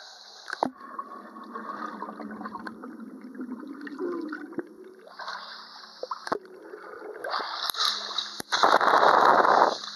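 Muffled underwater pool sound: water sloshing and gurgling around a swimmer, with a loud rush of bubbles about a second before the end.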